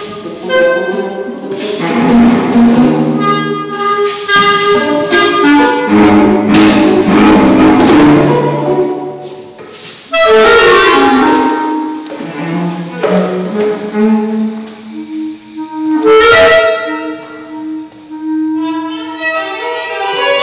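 Small live chamber ensemble of woodwind and bowed strings playing a contemporary piece in sustained, shifting notes, with a sudden loud entry about ten seconds in and a short sharp hit about six seconds later.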